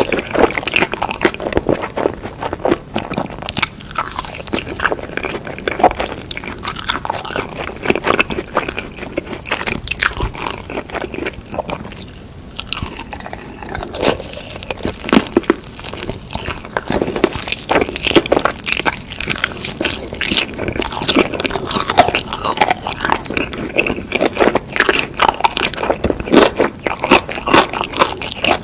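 Close-miked eating sounds from noodles with chicken: a steady run of crunchy bites and chewing, many sharp irregular crackles.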